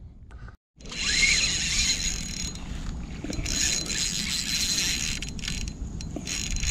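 Spinning fishing reel being cranked to retrieve a lure: a steady whirring hiss with a thin high whine, broken by short pauses now and then.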